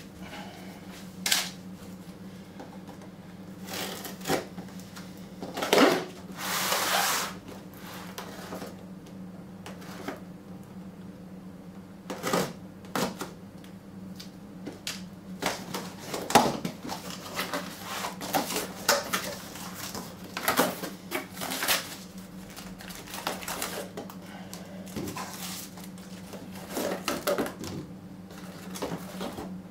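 A taped cardboard parcel being opened by hand: packing tape cut and pulled and cardboard flaps rustling, with irregular clicks and knocks and a longer tearing rasp about six seconds in. A steady low hum runs underneath.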